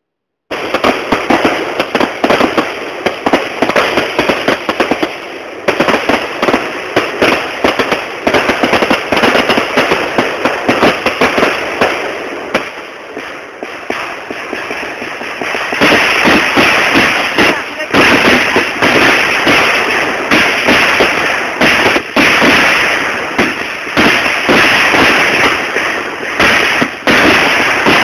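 Fireworks display: a dense, continuous crackle of many rapid pops and bangs, easing off for a few seconds in the middle, then growing louder and denser again a little past halfway.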